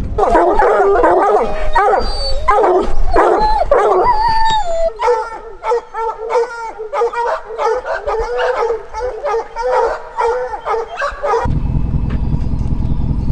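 Pack of bear hounds baying: several long, wavering howls overlap for the first five seconds, then give way to a steady run of short, repeated barks. A low vehicle engine rumble comes in near the end as the barking stops.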